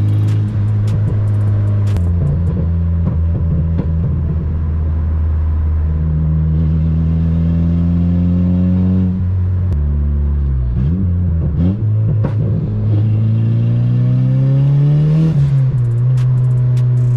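Turbocharged Honda K24 four-cylinder in a 9th-gen Civic Si, heard from inside the cabin while driving. The engine holds a steady pitch for several seconds, drops at a gear change about ten seconds in, then revs up and drops again at another shift. Scattered sharp crackles and pops come from the exhaust.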